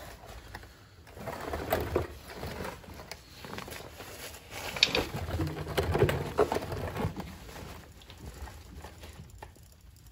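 Hand riv nut tool being cranked with wrenches to set a riv nut in a steel frame, with irregular metal clicks and scrapes. Low strained grunts from the man working it come through in between, loudest around the middle.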